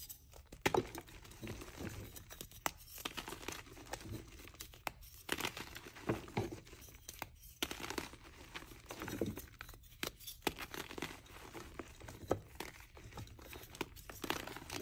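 Orange reformed chalk blocks crushed and crumbled by hand into loose powder: an irregular run of dry crunches and crackles, with louder crumbling bursts every second or two.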